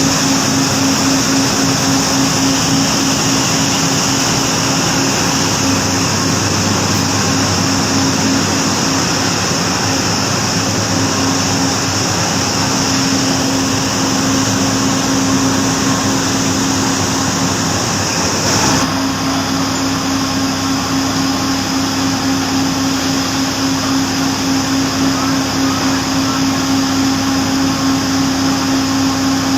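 Steady, loud drone of running factory machinery, a constant hum with a high hiss over it, changing character abruptly about two-thirds of the way through.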